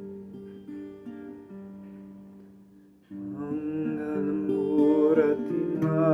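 Acoustic guitar playing a slow chord passage that dies away. About three seconds in, the guitar strikes up again louder and a singing voice comes in with it.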